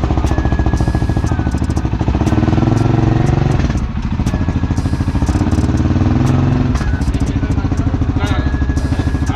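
ATV engine running through an RJWC aftermarket exhaust, revved up twice and dropping back to a fast idle between and after.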